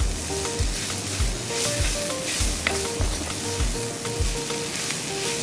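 Shredded cabbage, carrot and pepper filling sizzling in hot oil as a wooden spatula stirs and tosses it in the pan. Background music with a steady bass beat plays along and drops out about four seconds in.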